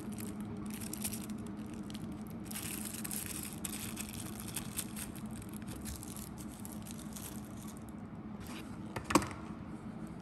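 Crinkling and rustling of a thin plastic wrapper as a microfiber cleaning cloth is unwrapped by hand. It is busiest in the first few seconds and sparser after. A single sharp knock comes about nine seconds in, over a steady low hum.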